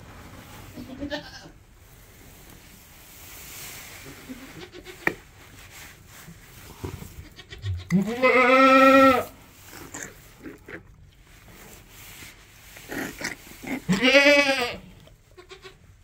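A goat bleating loudly twice, two long rising calls about five seconds apart, with soft small movement noises between them.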